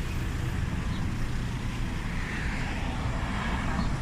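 Steady rumble of road traffic, with a vehicle's hiss swelling about two seconds in.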